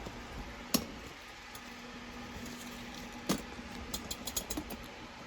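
Handling noise from a camera being fiddled with: two sharp knocks, about a second in and again past three seconds, then a quick patter of small clicks, over a faint steady hum.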